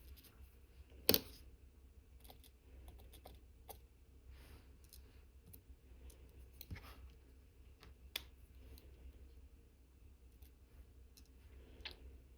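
Faint, scattered clicks and light taps of watchmaker's tools on the small parts of an Omega Cal.1109 watch movement being reassembled, with a sharper click about a second in and another near eight seconds.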